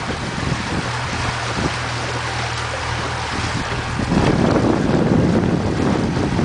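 A boat's motor runs with a steady low hum under wind buffeting the microphone and choppy water sloshing. The wind noise swells louder about four seconds in.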